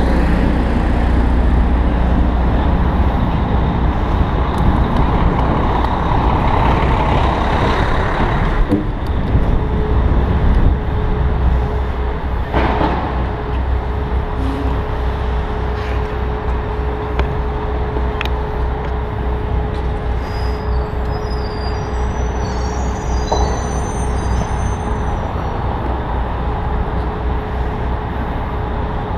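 Manhattan street traffic heard from a bicycle: a steady low rumble of engines and vehicles. From about ten seconds in a steady hum runs on for some thirteen seconds, with brief high chirps near the end of it.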